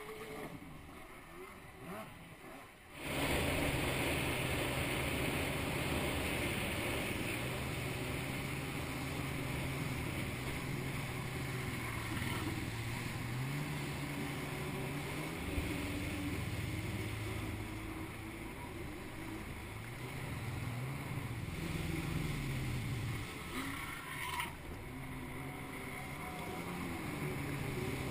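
Jet ski engine running low for the first few seconds, then opening up about three seconds in and running at speed with spray hissing off the hull. Its pitch rises and falls with the throttle, and it eases off briefly near the end before picking up again.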